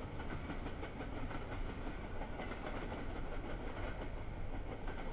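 CSX double-stack container freight train rolling past, a steady rumble of its wagons with wheels clicking over the rail joints.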